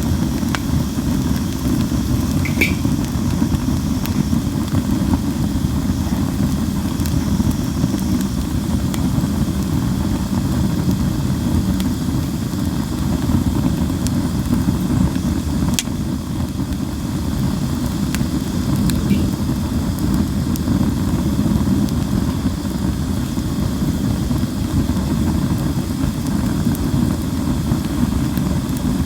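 Linden wood campfire burning in a fire pit: a steady low rumble of flames with a few sharp pops, and a faint high hiss during the first several seconds, the hissing the wood gives off in the early part of the burn.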